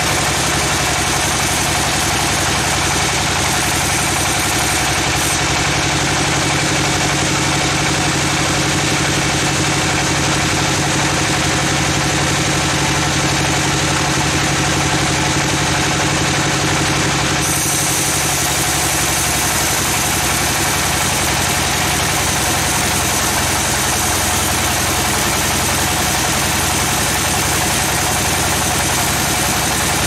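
Band sawmill running with its blade cutting lengthwise through a log: a loud, steady machine drone with several steady hums under a hiss that becomes brighter a little past halfway.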